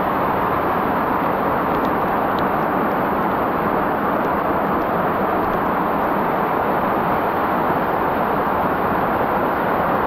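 Mountain stream cascading over rocks right beside the microphone: a loud, steady rush of falling water.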